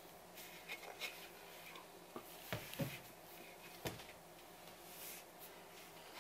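Faint scraping of a spatula through thick miso paste in a metal pot, with a few soft knocks about halfway through as the pot and a plastic tub are shifted on a wooden table.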